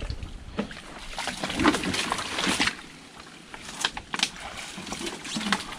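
Irregular splashing and sloshing of water, with a few sharp knocks.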